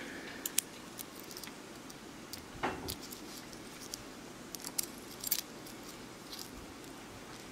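Scattered light metal clicks and clinks as a bottle cap with split rings and a hook attached is handled and pinched shut by hand.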